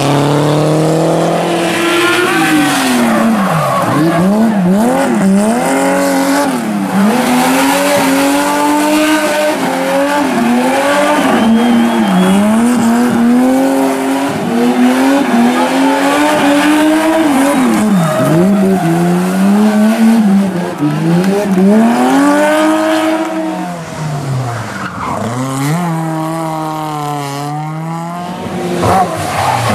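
Rally car engine revved hard, its pitch climbing and then dropping sharply every second or two, with tyres squealing as the car slides.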